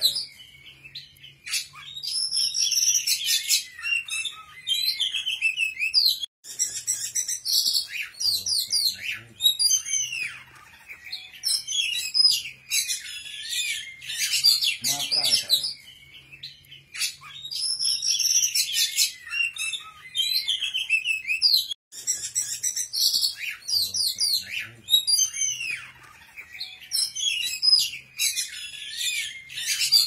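Songbird singing in rapid, high chirping and trilling phrases, a recorded 'masteran' loop that repeats about every 15 seconds.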